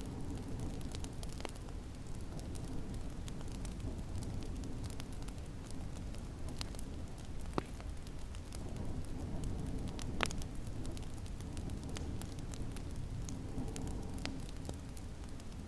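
Wood fire crackling, with scattered small pops and two sharper pops around the middle, over a steady low rumble of snowstorm wind.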